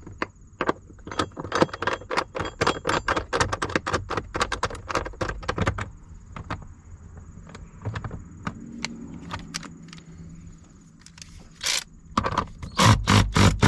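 Socket ratchet clicking in quick runs of strokes as the battery hold-down bracket bolts are tightened, followed by a short steady hum about eight seconds in and a few loud knocks near the end.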